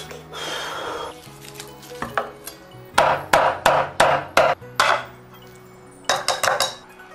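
A cleaver chopping poached chicken legs into pieces on a wooden cutting board: about six hard chops roughly a third of a second apart, starting about three seconds in. Near the end, a quick run of about five clinks from a spoon stirring sauce in a ceramic bowl.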